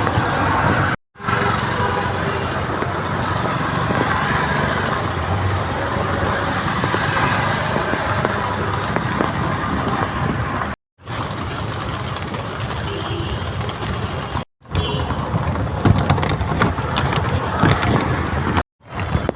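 Busy city street traffic noise: a steady mix of vehicles and distant voices, broken by abrupt cuts about a second in, around eleven seconds, around fourteen seconds and near the end.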